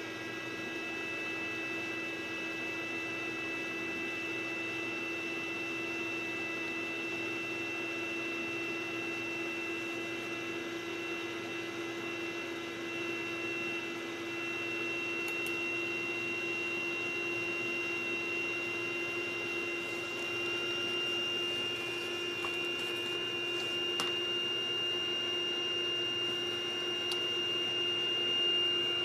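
2005 iMac G5 rev A running, with a steady fan whir under a constant high-pitched whine and a lower hum. This is power-supply noise from a faulty logic board, which the owner cured by replacing the board. A few faint ticks come in the second half.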